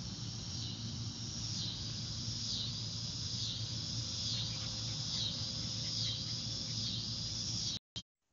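Insects shrilling: a steady high-pitched chorus that dips in pitch about once a second, over a low steady hum. The sound cuts out suddenly near the end.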